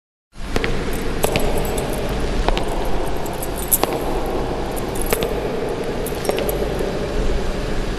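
Sparse light clicks and clinks, about one every second at irregular spacing, over a steady low hum that starts suddenly just after the opening.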